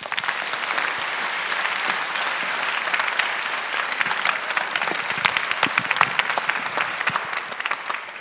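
Large audience applauding, starting all at once and thinning out near the end.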